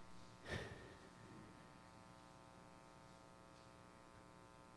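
Near silence: a steady electrical buzzing hum in the sound system, with one brief soft noise about half a second in.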